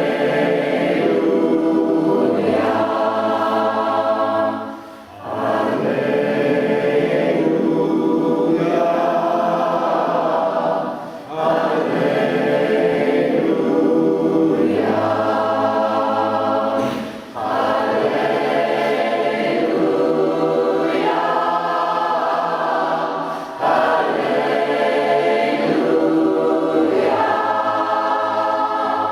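Community choir singing in several parts, holding full chords in long phrases of about six seconds, with short gaps for breath between them.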